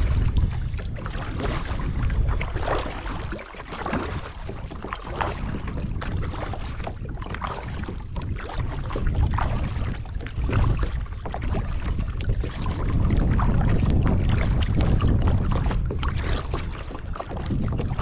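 Double-bladed kayak paddle strokes, the blades dipping and splashing in the water one side after the other. A heavy low rumble of wind on the microphone is the loudest sound throughout.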